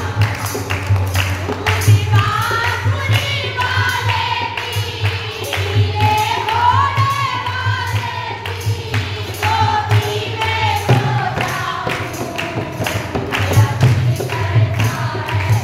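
Group of women singing a Hindi devotional bhajan together, backed by a dholak barrel drum beaten in a steady rhythm and hand-clapping.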